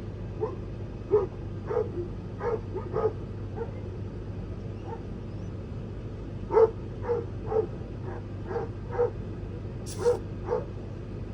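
A dog barking repeatedly, short barks at irregular intervals, over a steady low hum.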